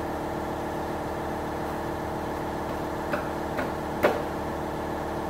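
Steady hum of a running motor, with three light knocks about three to four seconds in as the new sanding drum is worked onto the drum sander's shaft.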